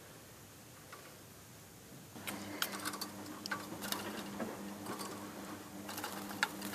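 Budgies bathing in shallow water: irregular flurries of small splashes and patter starting about two seconds in, over a low steady hum that starts at the same time.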